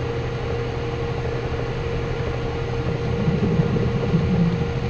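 Small benchtop metal lathe with a flat-belt step-pulley drive running, its motor and belt giving a steady hum, while a drill in the tailstock is run into the spinning workpiece. The sound grows a little louder and rougher for a second or so about three seconds in.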